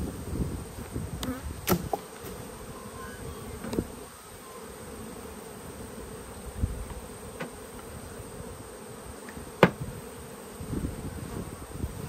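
A hive of honey bees buzzing steadily around an opened hive box, with bees crawling over the top bars. A few sharp knocks of wooden hive boxes being handled cut through the hum, the loudest about ten seconds in.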